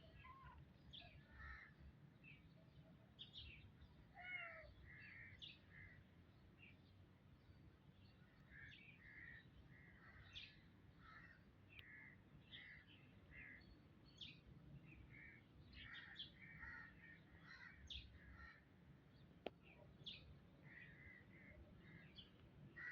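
Faint birdsong: several birds giving many short chirps and calls, overlapping and irregular, over a low background hum.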